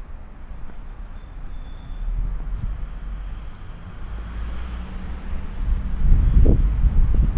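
Low outdoor rumble of street traffic with wind buffeting the microphone, growing louder about six seconds in.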